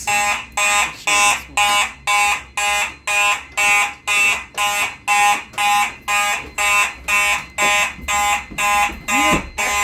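Fire alarm system sounding in march-time code: its notification appliances pulse on and off about twice a second in a steady, even rhythm.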